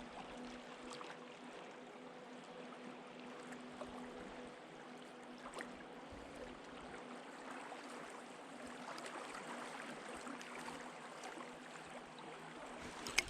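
Steady rush of flowing river water, with a faint steady hum through the first half and one sharp click near the end.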